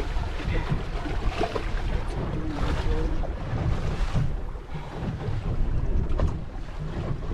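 Wind buffeting the microphone over the slosh of waves around a small boat.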